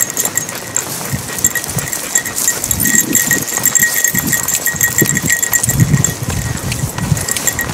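Footsteps on a gravelly dirt trail, with a light, continuous jingle of metal from a dog's harness tag as the dogs trot along.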